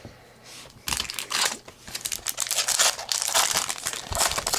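Trading card pack wrapper being torn open and crinkled by hand, starting about a second in with a run of irregular crackling rustles.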